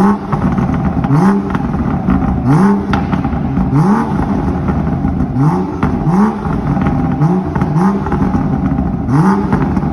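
BMW M2's turbocharged straight-six, fitted with an aftermarket downpipe, being blipped repeatedly from idle: about nine short revs that rise and fall, each followed by crackling from the exhaust.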